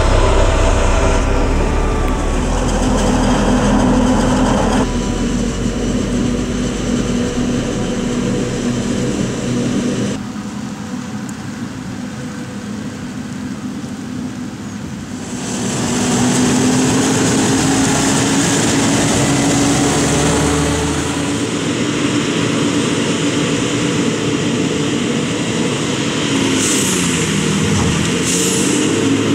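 Heavy diesel farm machinery of a maize harvest running under load: tractors and a forage harvester chopping maize, heard in several cuts that each change the mix abruptly. Near the end one engine note dips in pitch and rises again.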